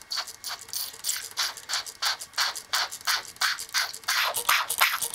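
Hand trigger spray bottle pumped over and over, short hissing squirts about three a second that quicken near the end, jetting water into a washing machine's inlet filter screen to flush out the sediment clogging it.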